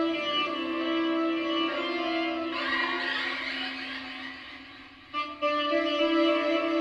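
Tenor saxophone in free-jazz improvisation, holding long, slightly wavering notes, with a breathier, noisier stretch about three seconds in. The sound dips briefly near the end before the held notes come back.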